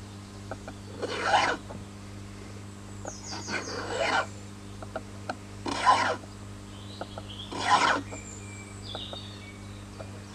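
A triangular file rasping across a hickory tomahawk handle, cutting a groove around the shaft. There are four slow strokes, about two seconds apart.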